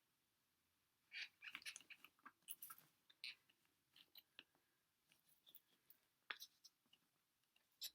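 Faint, irregular crinkling and clicking of a paint tube being crushed and wound up in a hand-twisted tube squeezer, starting about a second in, with a sharper click near the six-second mark.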